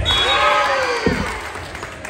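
A crowd cheering, with several high voices shrieking and shouting at once, loudest in the first second and then fading. A single sharp thud comes about a second in.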